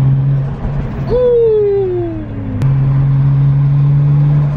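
Turbocharged Toyota 1JZ straight-six heard from inside the car's cabin, droning at steady revs. About half a second in the drone drops and a tone falls in pitch for about a second and a half. A sharp click comes just past the middle, and the steady drone returns.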